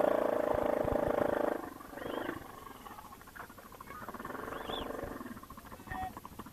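Quad (ATV) engine revving loudly for about a second and a half, then dropping back to a lower, steady run.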